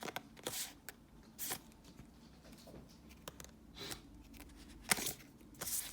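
Magic: The Gathering cards being flipped and slid against each other by hand, several short swishing rustles and clicks at irregular intervals.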